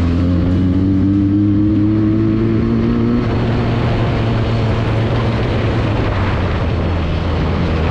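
Benelli TNT 300's parallel-twin engine and exhaust running under way, the engine note rising slowly over the first three seconds. Through the middle a rushing wind noise over a steady low drone takes over, and the engine note comes back near the end.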